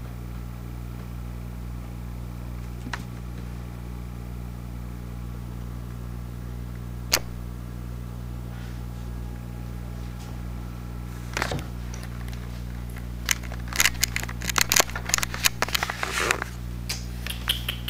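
Camera handling noise: a steady low hum throughout, one sharp click about seven seconds in, then a rapid cluster of clicks and knocks from about eleven seconds in as the camera is swung around.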